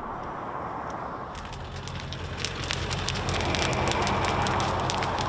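Pickup truck driving slowly over a road covered in Mormon crickets: a low engine hum under a dense crackling as the tyres crush the insects, growing louder from about a second and a half in.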